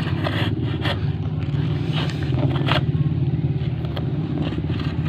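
Metal spade scraping and cutting into grass turf and sandy soil, a few short scrapes over a steady low rumble.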